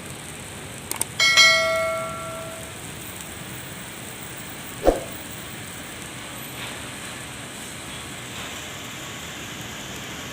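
Heavy rain falling steadily. About a second in, a metallic clang rings out and fades over a second or so, and a dull thump comes near the middle.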